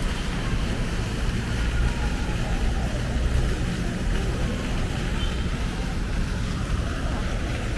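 Steady low rumble of open-air ambience, with faint voices of people in the background.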